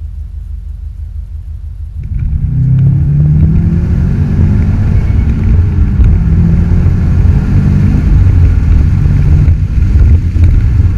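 Subaru WRX STI's turbocharged flat-four heard from inside the cabin through a Cobra Sport 3-inch turbo-back sports-cat resonated exhaust. It drones low and steady at first, then about two seconds in the throttle opens and the note rises and stays loud under acceleration, easing briefly near the end.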